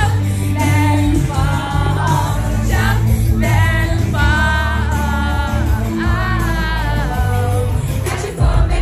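Loud dance-floor music over a club sound system: a song with a singing voice over heavy bass, played by a DJ.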